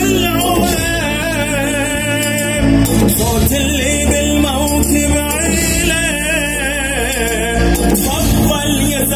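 A reciter's voice singing an Arabic mourning chant for Imam Husayn (a latmiya), in long wavering phrases with heavy vibrato over a steady low drone.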